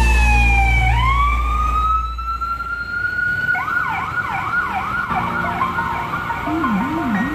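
Emergency vehicle siren: a wail that glides down, rises again and holds, then switches about three and a half seconds in to a fast yelp of about two and a half sweeps a second. A deep low rumble lies under it for the first two seconds, and a second, much lower yelping tone joins near the end.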